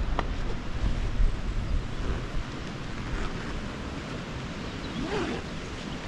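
Strong headwind buffeting the microphone of a cyclist riding into it: a rough, gusting low rumble, heavier in the first couple of seconds, then steadier.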